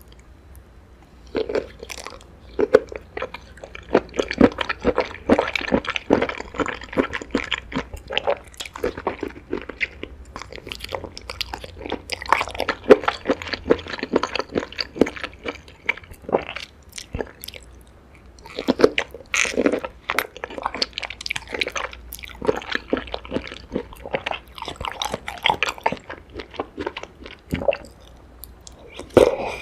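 Close-miked chewing and crunching as a person eats seaweed, in dense runs of crisp crackles broken by a couple of short pauses.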